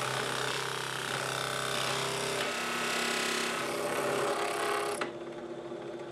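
Drill press running with a 2 1/8-inch Forstner bit boring into walnut and maple, a steady motor hum under the cutting noise. About five seconds in the cutting stops as the bit is raised, and the motor hums on.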